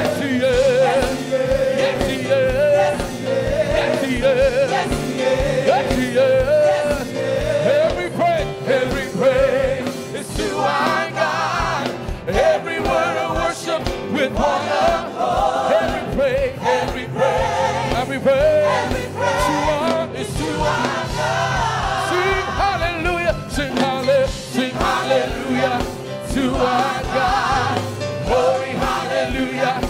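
A live gospel worship song: a choir and the congregation sing together over instrumental backing with a steady beat.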